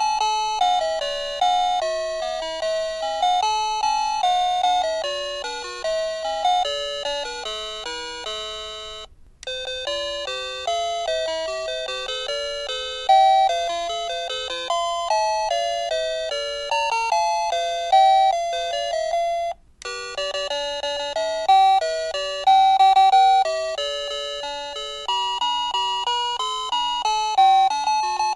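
Plug-in receiver of an Ang USA wireless doorbell playing its electronic chime tunes one after another, a melody of ringing notes that each fade out. The sound breaks off briefly about nine seconds in and again about twenty seconds in, each time moving on to a new tune.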